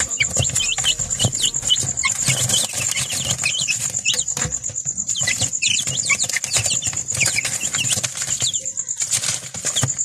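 Young chicks peeping over and over in short chirps, with rustling and scratching of their feet and wings on paper. A steady, pulsing high whine runs underneath.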